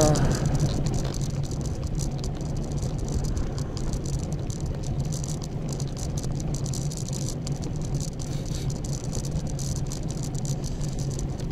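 A loaded touring bicycle riding along: a steady low rolling hum with a continuous light rattle from the bike and its luggage.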